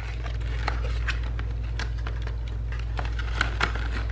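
Small cardboard product box being handled and its tuck flap prised open: scattered light clicks and scrapes of card, over a steady low hum.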